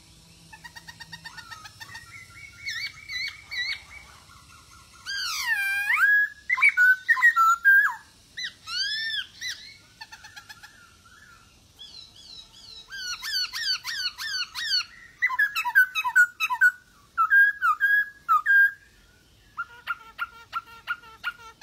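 Male black-throated laughingthrush (poksay Hongkong) singing a series of varied whistled phrases, with sweeping rising-and-falling notes and quick runs of short notes, broken by brief pauses.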